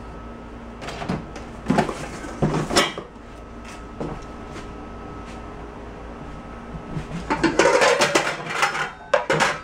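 Metal pots, pans and lids clattering and knocking together as they are handled and lifted in a plastic storage tote. The clatter comes in two bouts: one about a second in, and a busier one from about seven seconds in to the end.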